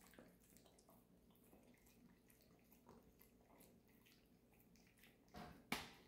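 Faint wet licking and mouth smacks of a husky nibbling at a piece of dumpling on the floor, with a sharper, louder click near the end.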